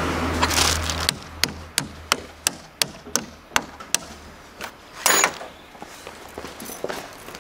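Plastic sheeting rustling, then a run of about nine evenly spaced sharp clicks, roughly three a second, and a brief loud rustle about five seconds in, from hands working around a car battery.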